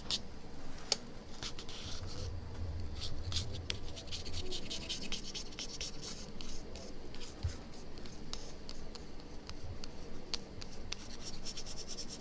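Repeated scratching and rubbing of a scraping tool over the iPhone 6 Plus screen, working softened old glue off it in many short strokes.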